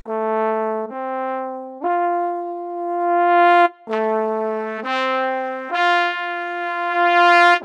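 Trumpet playing a simple rising three-note phrase twice. Each time the top note is held longest and swells in loudness.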